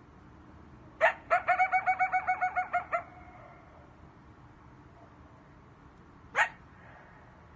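Coyote yipping: a single sharp yip about a second in, then a quick string of about a dozen yips lasting nearly two seconds, and another lone yip near the end.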